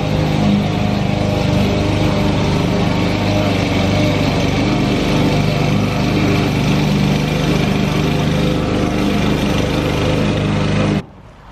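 Gasoline lawn mower engine running steadily under load, with a slight rise and fall in pitch. It cuts off abruptly near the end.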